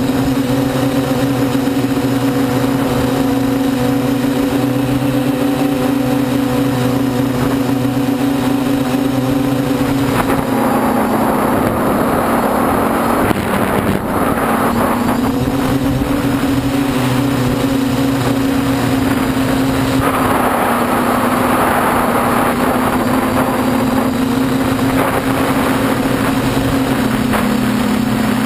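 An F450 quadcopter's motors and propellers humming steadily in flight, heard close up from the GoPro on board. About ten seconds in, and again about twenty seconds in, the hum dips a little in pitch for several seconds while a rushing noise rises over it.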